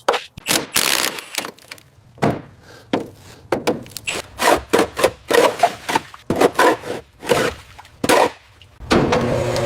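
An irregular run of knocks, clunks and scrapes, like hard objects being handled and dragged. About nine seconds in, a steady humming machine starts up.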